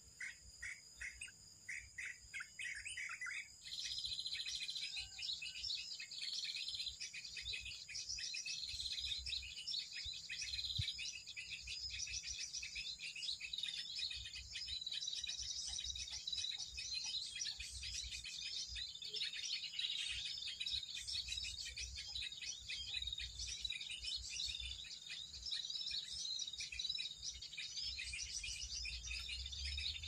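Small songbirds chirping and calling: a quick run of repeated notes for the first few seconds, then from about four seconds in a dense tangle of high overlapping chirps that goes on without a break. It is the bird-sound lure played from an MP3 to draw small birds such as bulbuls onto lime sticks, mixed with the calls of birds drawn in or caught.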